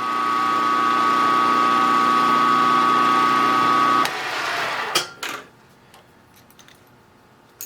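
Milling machine spindle spinning up and running with a steady whine while drilling a locating hole with a 0.111-inch drill, then switched off about four seconds in. A few clicks follow about a second later.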